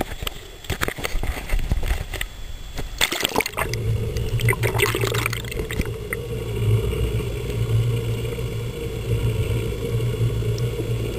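A camera plunged under the sea surface: splashing and bubbling water for the first few seconds. Then a steady low underwater hum, the boat's engine heard through the water.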